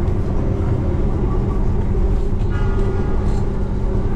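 Running noise of a moving passenger train heard inside the carriage: a steady low rumble with a constant hum underneath.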